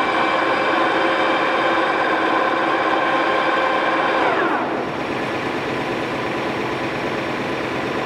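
Toolmex TUR-630A engine lathe spindle and headstock gearing running at 280 RPM with a steady whine. About four and a half seconds in, the spindle is stopped and the whine falls in pitch as it winds down, leaving a steady running noise without the whine.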